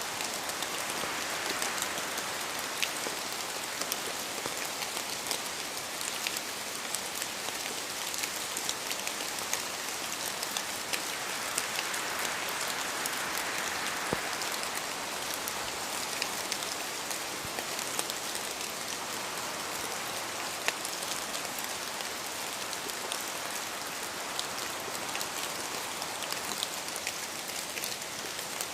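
Steady rain falling in a forest, a dense hiss full of individual drops pattering, swelling a little around the middle.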